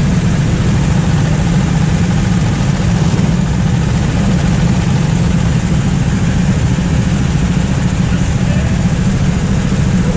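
Go-kart engine running steadily at idle close to the microphone, with no revving.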